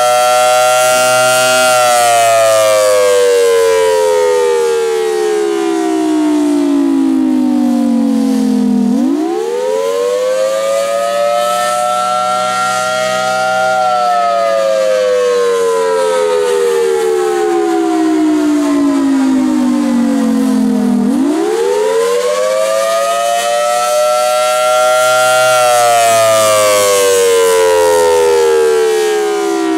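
Federal Signal Thunderbolt 1000T single-phase civil defense siren sounding its Attack (wail) signal. The pitch climbs quickly over about three seconds, holds briefly, then falls slowly for about seven seconds before winding up again. This cycle repeats about every twelve seconds.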